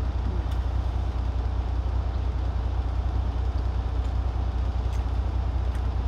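Steady low rumble of an idling truck engine heard inside the cab, with a few faint clicks from eating.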